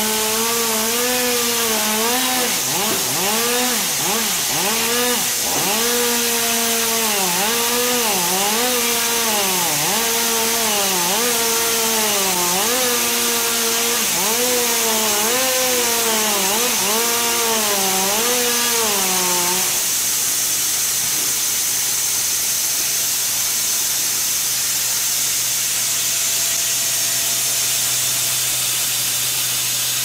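Log sawmill cutting through a large log: a pitched whine that wavers and dips again and again, over a steady machine hiss and hum. About two-thirds of the way through, the whine stops and only the steady hiss and hum go on.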